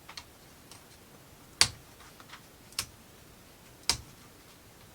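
Small laser-cut plywood parts of a UGEARS wooden model kit clicking sharply as they are handled: four separate clicks, the second the loudest.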